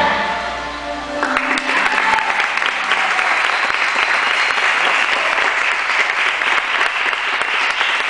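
Music fades out and, a little over a second in, an audience breaks into applause that continues steadily.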